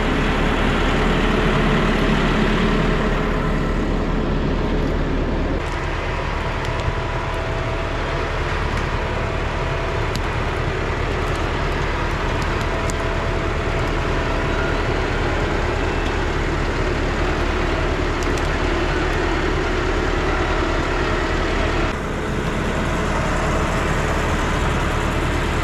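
Case Vestrum forestry tractor's diesel engine running steadily under load while it pulls a log-laden forwarding trailer. The sound shifts abruptly twice, about five seconds in and near the end.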